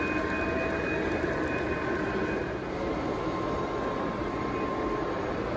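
A model freight train rolling past on layout track, a steady running noise with faint steady tones, over the background noise of a large hall.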